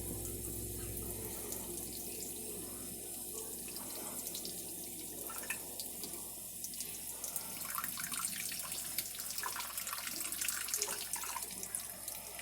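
Water running steadily from a tap into a sink, with faint small ticks.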